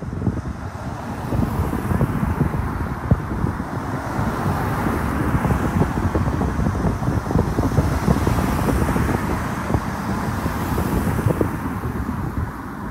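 Road traffic: cars driving past close by, with wind buffeting the microphone in a low, gusty rumble. It gets louder about a second in and swells as cars go by.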